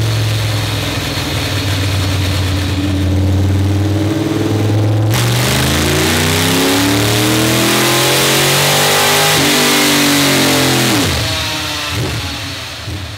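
Chevrolet 602 crate small-block V8 in a dirt modified running on a chassis dyno. It holds a steady speed at first, then goes to full throttle about five seconds in for a dyno pull with the revs climbing. Near the end it backs off, the revs fall and the sound fades out.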